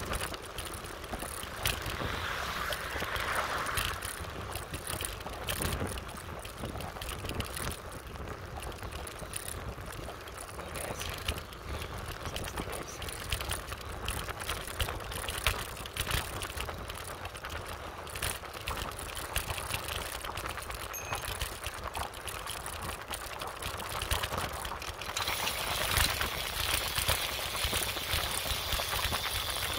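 Wind rushing over the microphone and the rattle and rumble of a motorbike riding along a rough rural road, with many small knocks from bumps. About 25 seconds in it grows louder and hissier.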